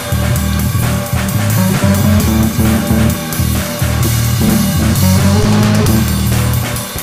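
Recorded band music: guitar over a heavy bass line and drum kit, playing continuously.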